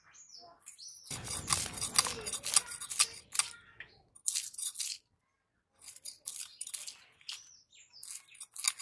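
Scales being scraped off a rohu fish against the curved iron blade of a boti: rapid rasping, clicking strokes, in a dense run from about a second in, then in shorter bursts in the second half.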